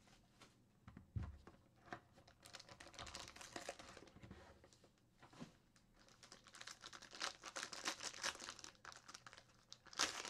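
A foil trading-card pack crinkling as it is handled, with intermittent rustles after the box is lifted. The rustling gets busier in the second half and is loudest near the end.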